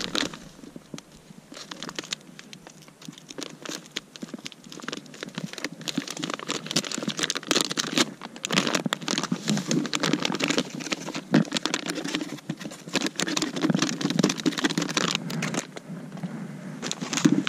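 Plastic groundbait bag crinkling as it is handled and shaken upside down, with the dry, crumbly bait pattering into a plastic bucket. The rustling is sparse at first and grows busier about six seconds in.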